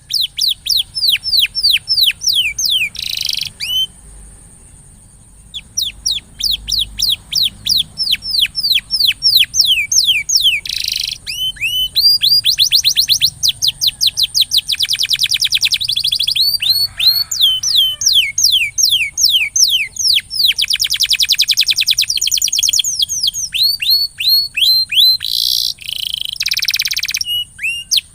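Domestic canary singing: long runs of rapid, repeated downward-sweeping whistled notes broken by fast trills and buzzy rolls, with a short pause about four seconds in.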